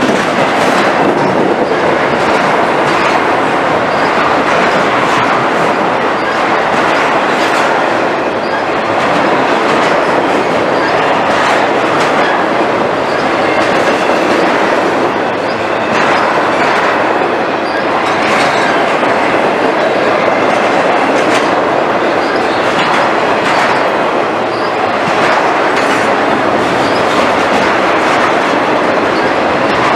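Freight train's loaded flatcars rolling past at steady speed: a continuous rumble of steel wheels on rail, with irregular clicks and clacks as the wheels cross rail joints.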